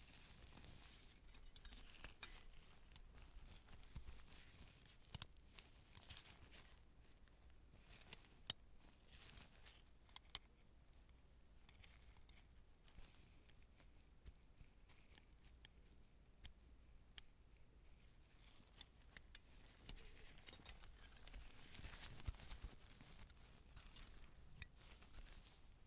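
Surgical instruments being handled: scattered soft metallic clicks and clinks with light rustling, a sharper click about eight and a half seconds in.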